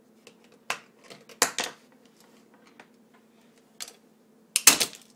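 Plastic casing of a TV remote control being pulled apart by hand, giving sharp clicks and cracks: a few scattered, with a louder cluster about a second and a half in and the loudest near the end.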